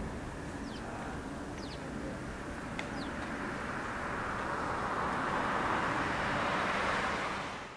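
Boeing 747-400 freighter's four jet engines at takeoff power as the aircraft lifts off and climbs: a steady jet rumble that grows louder and hissier from about halfway through. A few short bird chirps are heard in the first three seconds. The sound fades out abruptly at the very end.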